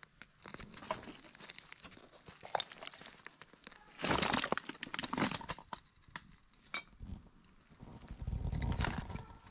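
Footsteps crunching through dry leaves, twigs and half-rotten rubbish, with crackling and snapping, louder about four seconds in. A low rumble near the end.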